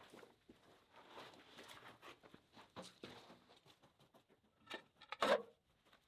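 Shuffling footsteps and scuffs as a log is turned and shifted by hand on a portable sawmill's bed, with a couple of sharp knocks about five seconds in.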